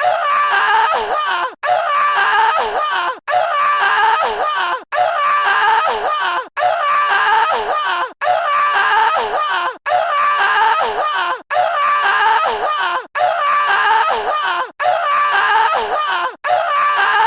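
A short stock sound effect of high, wavering voice-like screams, looped: it repeats about every one and a half seconds, with a brief gap between repeats.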